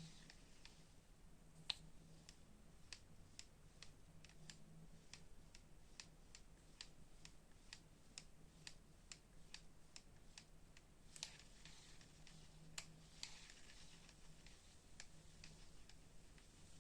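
Daiwa Exceller 23 spinning reel knocking as its handle is cranked: a regular click about two to three times a second, with a few louder clicks among them. The knock is a fault in the reel's mechanism.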